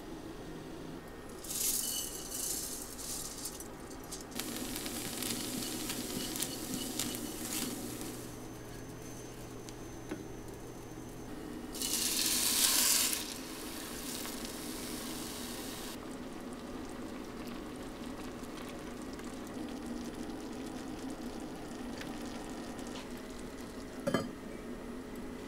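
Sizzling in a hot enamelled cast-iron rice pot, with a loud surge of hissing about twelve seconds in as water is poured onto the rice for pot rice. Near the end the pot's lid is set on with a single clink.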